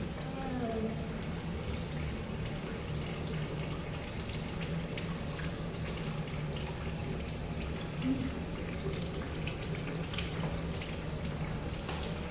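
Manual-lever Kohler toilet flushing: a click as the lever is pushed, then water rushing steadily on and on in a long flush that may be stuck.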